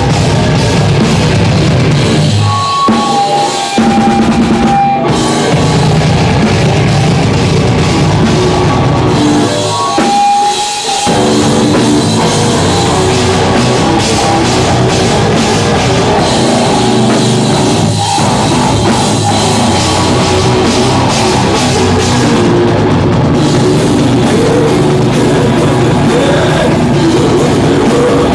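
Live heavy metal band playing loud: distorted electric guitar, bass and drum kit. The low end drops out briefly twice, about three and ten seconds in, leaving a few held guitar notes.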